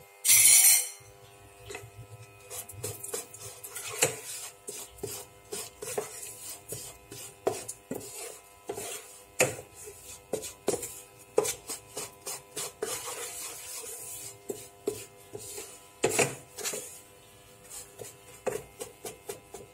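Wooden spatula scraping and stirring almond flour mixed with ghee around a pan, in many short, irregular rasping strokes. A brief loud rasping burst comes right at the start.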